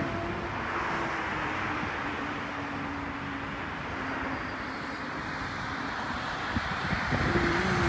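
Steady road traffic noise from cars on a multi-lane road below, growing a little louder near the end as a vehicle passes.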